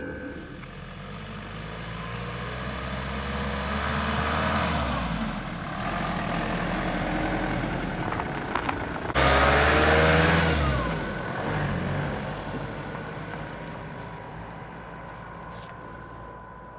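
A road vehicle's engine running with changing pitch, building up and easing off. About nine seconds in, it switches suddenly to a louder engine sound that then fades away.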